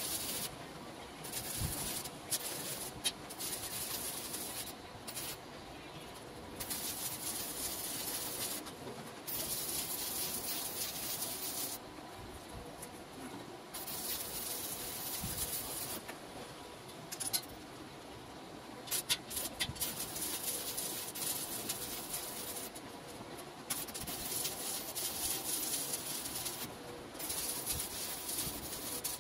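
Electric arc welding on steel tube: the arc crackles and hisses in runs of one to four seconds, stopping and starting again about a dozen times as each joint is welded.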